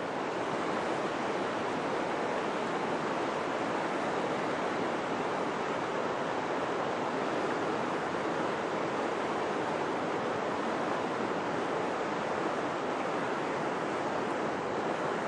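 Shallow river rushing over rocks and riffles: a steady, even rush of running water.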